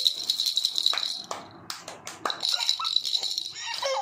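Plastic baby rattle shaken hard in quick bursts, broken by a few separate knocks. Near the end a baby gives a short whining cry.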